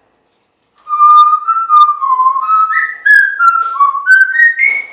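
African grey parrot whistling a loud run of about a dozen clear notes. It starts about a second in, steps up and down in pitch and climbs to higher notes near the end.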